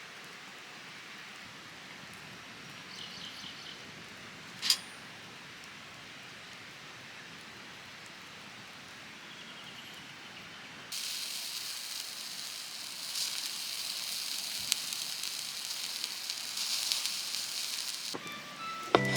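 Food sizzling on a hot pan or grill, a dense high hiss that starts abruptly about halfway through and stops just before the end. Before it there is only a quiet outdoor hiss with a single sharp click.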